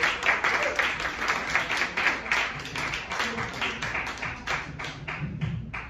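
Audience applauding, many hands clapping quickly, the clapping thinning out and fading away near the end.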